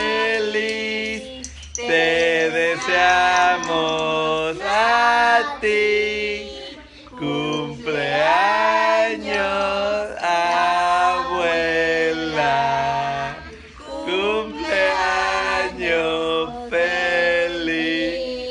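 A man, a woman and two young children singing a birthday song together without accompaniment, with short breaks between phrases.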